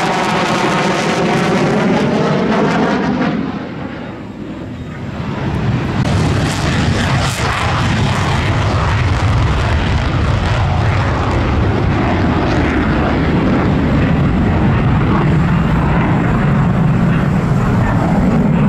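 Jet noise from an F-15J Eagle's twin turbofan engines as it passes overhead, with a sweeping, swishing tone that fades about four seconds in. From about six seconds the jet noise builds again into a loud, steady rumble as the F-15 runs back in with afterburners lit.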